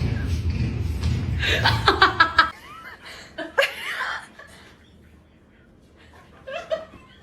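People laughing, a loud run of quick laughs about two seconds in, then shorter laughs after, over a low steady rumble that stops about two and a half seconds in.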